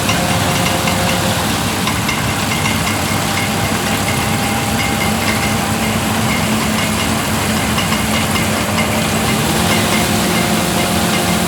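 A large engine running steadily at an even speed, with a constant hum and a few steady whining tones over it.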